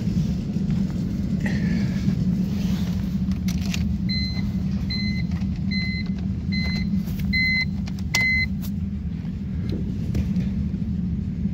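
A BMW's dashboard warning chime beeping six times, about one short beep every 0.8 seconds, as the key goes into the ignition and the ignition is switched on. A few sharp clicks from the key and switchgear, over a steady low hum; the engine is not yet running.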